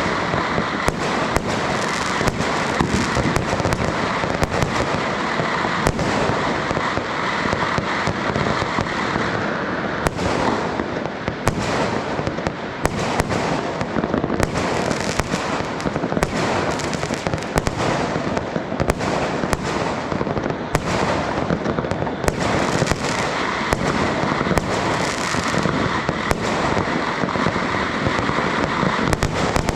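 Dense, continuous barrage of fireworks and firecrackers: many sharp bangs and pops, so close together that they merge into one unbroken crackling din.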